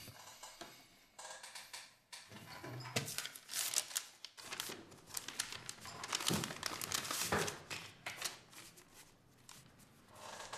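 Paper rustling and crinkling as banknotes are pulled out of a brown paper envelope and handled: a string of short, irregular rustles.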